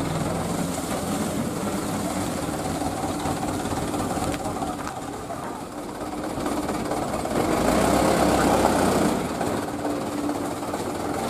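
Diesel engine of a sand-loaded light dump truck running steadily, growing louder for a second or two about two-thirds of the way through as it is revved with its rear wheels in soft sand.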